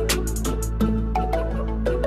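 Electronic background music with a steady beat, short pitched notes and a deep sustained bass.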